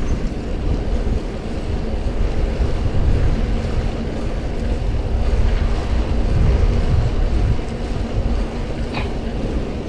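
Wind buffeting the microphone of a chest-mounted action camera on a moving bicycle, a steady low rumble with tyre noise on the asphalt path. There is a single short click near the end.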